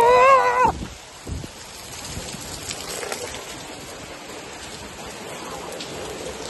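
Steady heavy rain falling and pattering on surfaces. About the first half-second holds a brief, loud, high held tone, the loudest sound.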